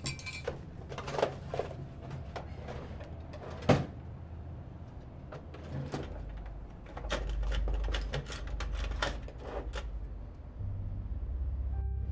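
A series of irregular clicks and knocks from things being handled, with one sharp knock near four seconds in; a low rumble sets in about halfway through.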